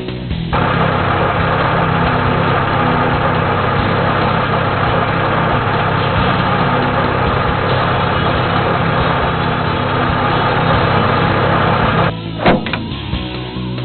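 A motor running steadily, starting about half a second in and cutting off near the end, followed by a few short sharp knocks.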